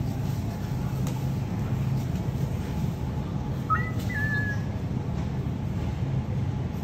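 Steady low hum of store background noise, with one short whistle-like note about four seconds in that rises and then holds briefly.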